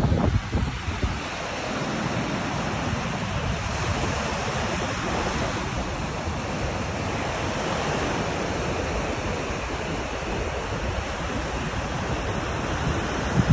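Small waves breaking and washing up onto a sandy beach: a steady hiss of surf. Wind buffets the microphone with a low rumble in the first second.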